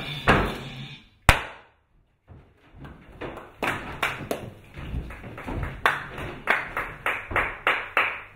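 Stage music fades out and a single loud bang comes about a second in, then a brief silence. After that comes a run of sharp percussive hits that grow louder and closer together, about three a second near the end.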